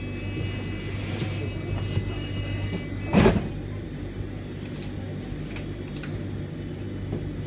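Tram running, with a steady electric hum and a high whine that stops about three seconds in, followed by a short loud burst of noise.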